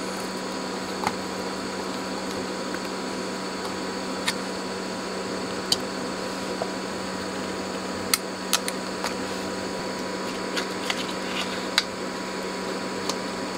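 About a dozen light clicks of a chip being prised out of its IC socket with a screwdriver and a replacement LM339 comparator pushed in, over the steady hum and fan noise of bench test equipment.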